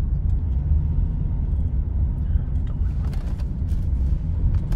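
Car driving slowly, heard from inside the cabin: a steady low rumble of engine and tyres, with a few faint clicks a little after the middle.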